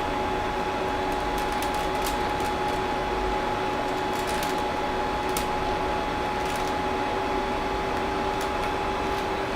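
Creality CR-10S Pro 3D printer idling with its cooling fans running: a steady whir with a constant two-note hum and a few faint clicks.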